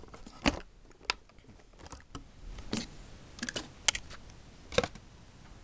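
Irregular light clicks and taps from a model dump truck and its plastic packaging being handled.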